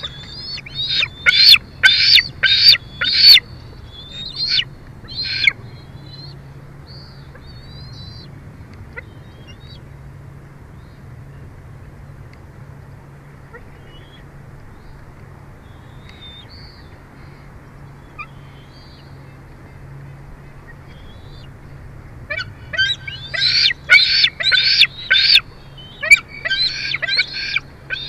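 Bald eagle calling: two bouts of high, rapid, piping chitter notes, about three a second, one at the start and one again near the end, with scattered single notes in between.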